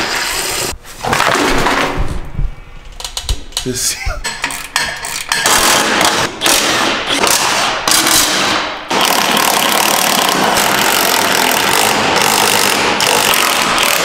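Cordless impact driver working underbody fasteners loose, in short broken bursts, then a long unbroken run over the last five seconds.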